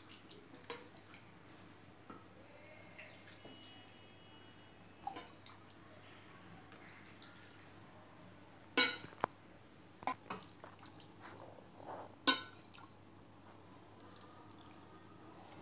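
Stainless-steel ladle clinking against a steel pot and tray as warm milk is ladled over rice-flour dumplings, with soft drips and splashes of the milk. A few sharp clinks stand out, the loudest about nine, ten and twelve seconds in.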